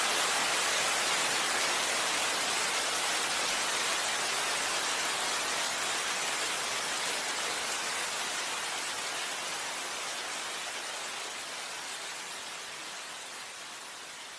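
Heavy rain falling as a steady, even hiss that fades gradually over the second half.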